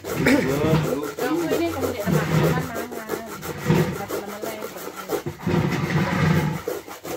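Coconut being grated by hand on a wooden grating board over a metal pot: quick, rhythmic rasping scrapes, several strokes a second.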